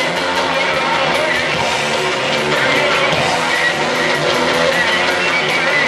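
Live rock band playing loud amplified music, with electric guitar prominent over drums, heard from among the audience.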